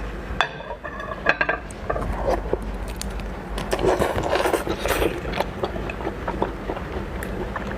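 Close-up eating of raw red lobster: a run of clicks, crackles and scraping as shell is handled and bitten.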